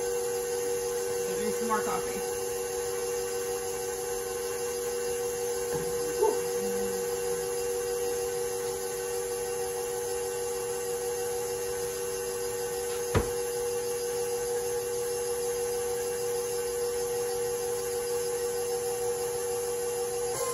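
Electric stand mixer running at a steady speed, its motor giving an even hum as the paddle beats cream cheese batter. One sharp tap about two-thirds of the way through.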